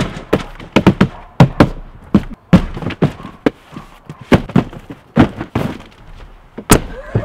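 Cardboard shipping boxes being set down and stacked on one another on a table: a quick, irregular run of dull thuds, two or three a second, with one sharper knock near the end.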